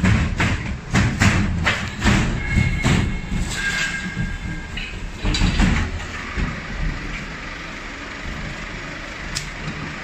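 Knocks and clatter of cargo being handled inside a steel shipping container, several hits a second for about six seconds, with a brief high squeal about two seconds in; it then settles to a steady low rumble.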